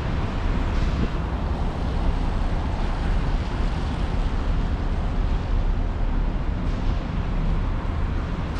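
Steady city street noise of passing traffic, with wind rumbling on the microphone.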